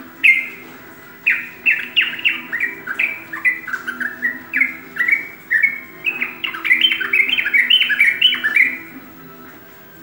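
Caged yellow-vented bulbul (trucukan) singing a long run of short, quick chirping notes that grows faster and denser in the second half, then stops about nine seconds in.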